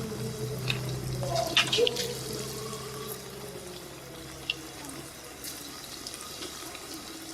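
Chicken pakoras sizzling as they deep-fry in hot oil in a kadai: a steady crackling hiss with small pops.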